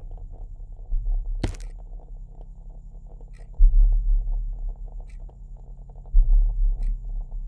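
Deep low booms in a film soundtrack, recurring about every two and a half seconds, each starting suddenly and dying away, with one sharp click about one and a half seconds in.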